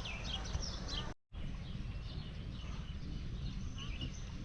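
Small birds chirping, many short falling chirps in quick succession, over a steady low outdoor rumble. The sound cuts out completely for a moment a little over a second in.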